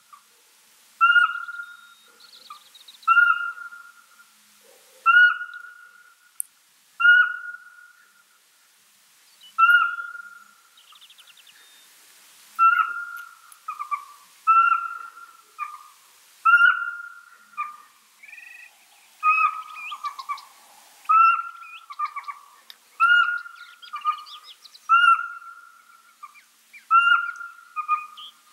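A pygmy owl calling: a long series of short, clear, single whistled hoots, about one every two seconds at first, then coming faster and less regularly, about one a second, in the second half.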